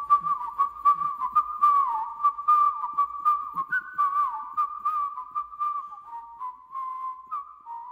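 A whistle-like tone warbling around one pitch, with sharp clicks about three times a second. The clicks die away about five seconds in, and the tone thins out and fades near the end.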